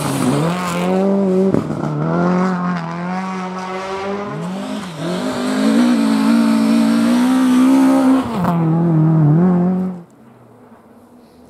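Rally car engines at full throttle: one car passes close, its engine pitch dropping as it goes by. A second car then approaches at high revs, its pitch climbing and breaking at gear changes, and grows loud. The engine sound cuts off abruptly about ten seconds in, leaving only a faint background.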